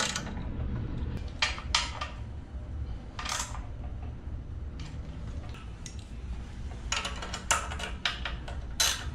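A wrench working on the minibike's engine-mount bolts: scattered metallic clicks and clinks of the tool on the bolts and frame, with a steady low hum underneath.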